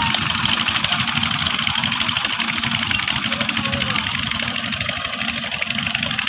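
Mahindra Arjun tractor's diesel engine running steadily with an even, fast beat as it pulls a trolley through soft sand.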